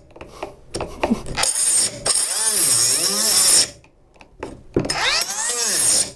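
A cordless mini angle grinder with a Bosch wood-cutting disc runs in short bursts as it cuts into a wooden beam, its motor whine rising and sagging under load. Just before halfway it stops for about a second, then spins up and down again, the stop-start under load typical of the grinder's overload protection cutting in.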